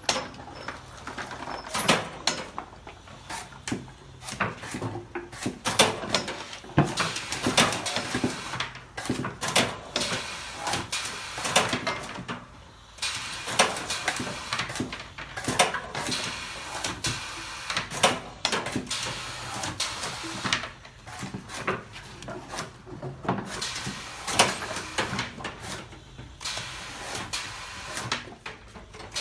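Hand-operated sugarcane sett-cutting machine chopping cane stalks into short mini-setts: a string of sharp clunks and knocks at an irregular pace, with the strongest strikes coming every couple of seconds.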